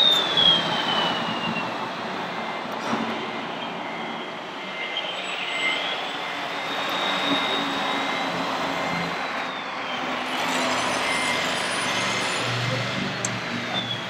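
Electric drive motor and gearbox of a radio-controlled scale MAN tipper truck whining over a steady hiss, the pitch falling and rising as the truck slows and speeds up.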